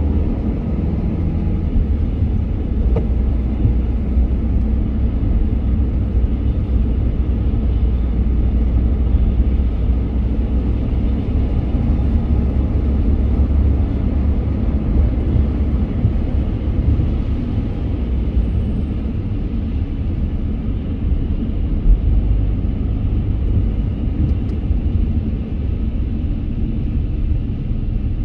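Steady low rumble of a car driving: engine and road noise from the moving car. One brief thump stands out about two-thirds of the way through.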